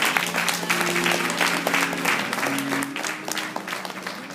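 Audience applauding, with music of a few held low notes underneath; the clapping thins out and fades toward the end.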